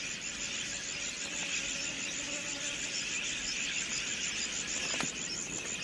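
Dense, steady high-pitched chirring of insects, like crickets, filling a dry outback field ambience.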